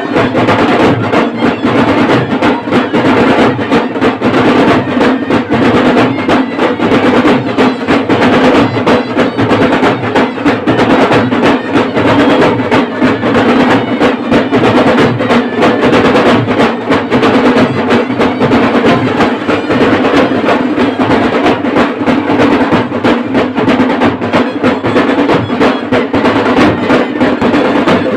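Dhol and tasha drum band playing a fast, loud, continuous rhythm of dense rapid strikes.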